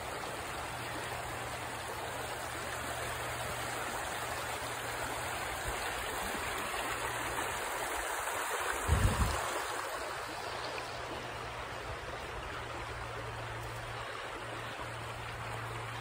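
Small river rushing steadily over shallow rapids. About nine seconds in there is a brief low rumble.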